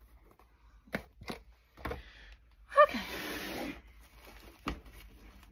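A rolled diamond-painting canvas being handled in its drawstring canvas carrying bag: a few light knocks and taps, and about three seconds in a rustle of the bag lasting about a second.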